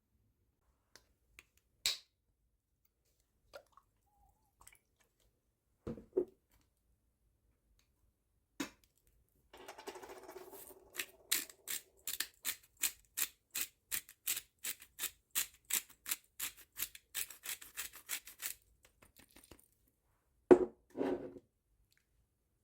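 A run of sharp, even knocks at about four a second, lasting some nine seconds, with scattered clicks before it and two heavier knocks near the end.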